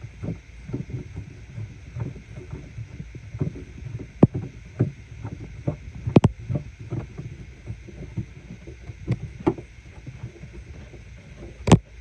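Hand and arm rubbing and knocking against carpet and plastic trim inside a car's cargo-area access hatch while a tail light's retaining nut is tightened by hand: irregular scuffing with several sharp clicks, the loudest near the end.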